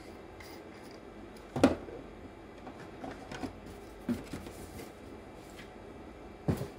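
A few separate knocks and clicks of small hard objects being handled, the loudest about one and a half seconds in and another just before the end.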